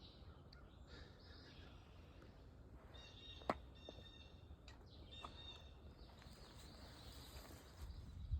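Faint outdoor quiet with bird calls: two short high-pitched calls, about three and five seconds in, and a single sharp click between them.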